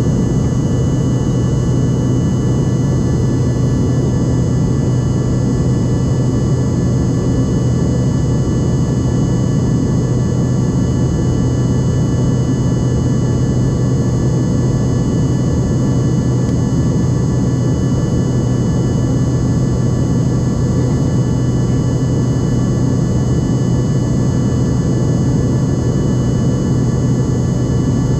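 Airliner cabin noise in climb: the engines' steady drone and the rush of air past the fuselage, with a constant low hum and thin steady high-pitched whines.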